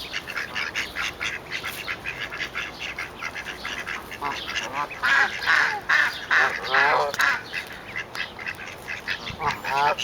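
Baby ducklings peeping continuously in rapid, high, overlapping chirps. Louder pitched calls come in bunches from about the middle to three quarters of the way through, and again near the end.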